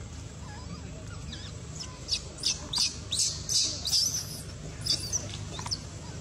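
Baby macaque crying: a run of about eight short, high-pitched squeals, starting about two seconds in, over a steady low rumble.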